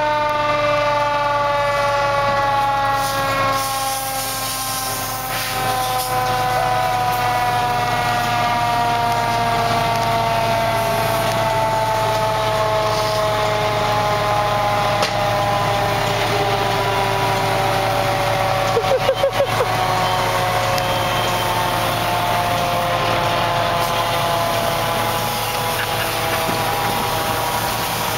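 A fire engine's mechanical siren winding down, one long wail that falls slowly and steadily in pitch, over diesel fire-engine engines idling. There is a brief stutter of pulses about two-thirds of the way through.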